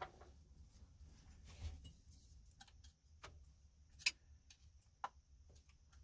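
Faint, scattered metallic clicks, about four of them with the sharpest about four seconds in, as a pin and small parts of a 1974 Dodge Charger seat-belt retractor are handled and worked loose.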